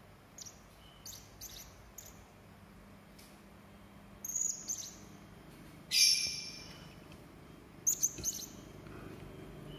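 Hanging parrot (serindit) giving short, sharp, high-pitched chirps at scattered intervals. One loud, harsh call comes about six seconds in, and a quick cluster of calls follows near eight seconds.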